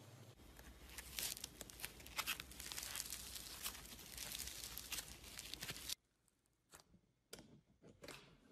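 Sushi-shaped floam being pulled apart and squeezed by hand: a dense crackling, tearing sound full of tiny pops. About six seconds in it cuts off suddenly, and a few soft, separate crackles follow.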